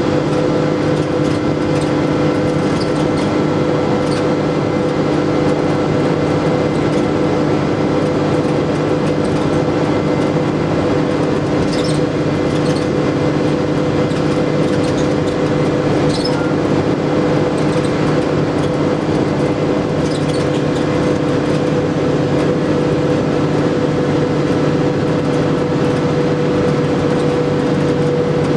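Stagecoach East Kent bus 16367's engine and drivetrain heard from inside the passenger saloon, running at a steady pace with a constant drone and whine over road noise. A few light rattles come through around the middle.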